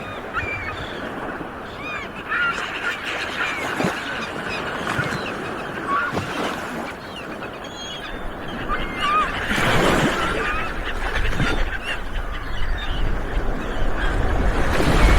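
Sea waves washing with many birds calling over them in short chirps. A wave surges up about ten seconds in and again near the end.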